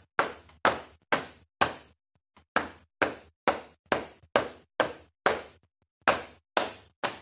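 Hand-clapping game rhythm: hands slapping the thighs and clapping, about two sharp slaps a second, counted in phrases of seven with a short rest about two seconds in and again near six seconds.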